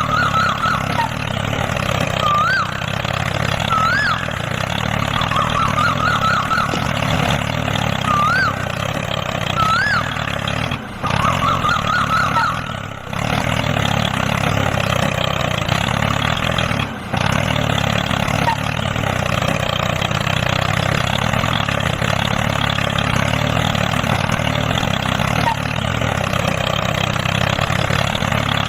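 Tractor engine running steadily at idle, a continuous low hum with brief dropouts. Short high warbling chirps sound over it during the first twelve seconds.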